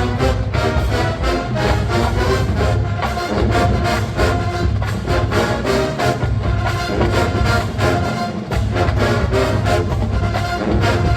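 College marching band playing a funk number: full brass section over a drumline keeping a steady beat, with heavy low bass.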